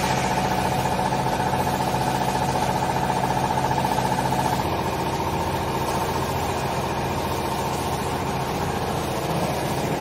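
The hydraulic power pack of a vertical clothing baler running: a steady motor-and-pump hum whose tone shifts slightly about five seconds in.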